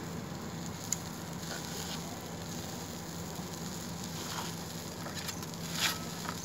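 Dosas cooking on a hot flat iron griddle: a steady sizzle, with a sharp click about a second in and a brief clatter near the end.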